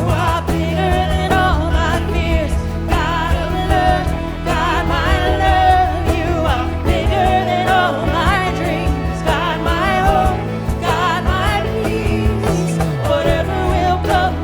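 Live worship music: singing over a band with a steady beat and held bass notes.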